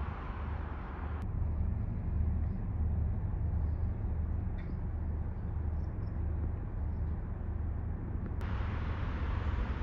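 Steady low rumble of outdoor city background noise, like distant road traffic. The hiss above it turns duller about a second in and brightens again near the end.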